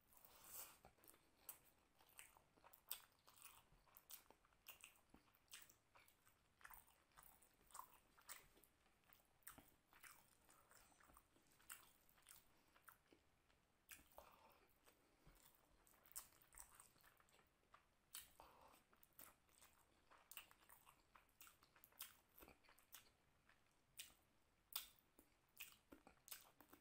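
A person chewing mouthfuls of rice and mutton curry eaten by hand, close up: soft, irregular mouth clicks and chewing noises, one to a few a second.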